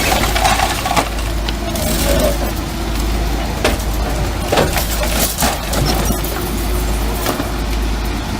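Heavy machine's diesel engine running steadily, with several sharp cracks and knocks of material breaking.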